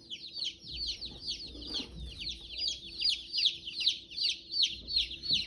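A boxful of day-old chicks peeping without a break: many high, downward-slurring cheeps overlapping, several a second.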